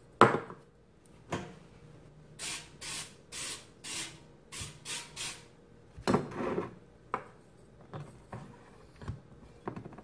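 Oil mister spraying the air fryer basket in a run of about eight short hissing spritzes. A knock comes at the start and a louder clunk about six seconds in.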